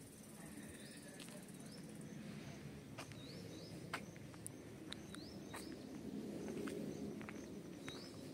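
Outdoor ambience: short rising chirps, mostly in pairs, repeat every couple of seconds over a low rumble, with a few sharp clicks, the loudest about four seconds in.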